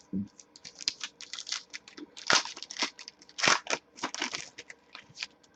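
Trading cards and their packaging being handled: irregular crinkling and rustling, louder about two and a half seconds in and again around three and a half to four and a half seconds in.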